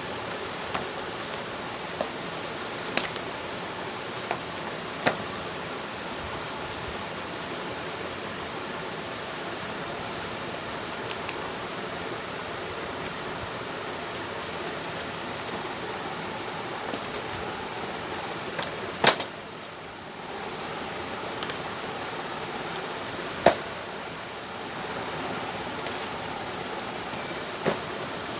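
Steady background hiss with scattered short, sharp clicks and taps, two of them louder about two-thirds of the way through.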